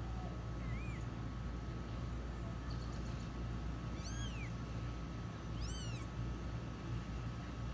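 Newborn kittens mewing: three thin, high-pitched mews that each rise then fall, a faint one just under a second in and two louder ones about four and six seconds in, over a steady low hum.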